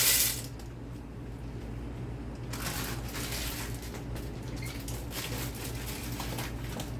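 Dry macaroni noodles poured into a soup pot, stopping just after the start. Then a low steady hum with faint rustling and small clinks.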